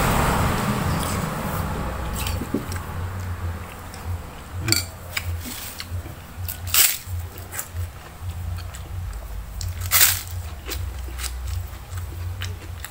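A man eating, biting into a crisp fried kerupuk cracker: a few sharp crunches a couple of seconds apart, with softer chewing between, over a low steady hum.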